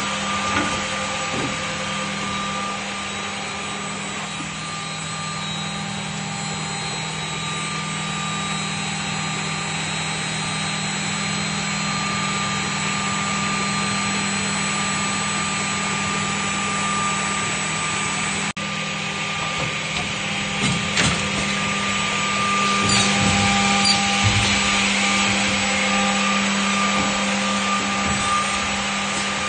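Automatic edge banding machine running: a steady motor hum with a rushing noise over it, and a few sharper, louder machining sounds in the second half.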